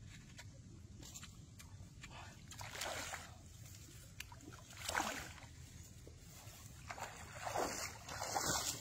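Steps wading through shallow muddy water: a few sloshing splashes, a louder one about five seconds in and a cluster near the end.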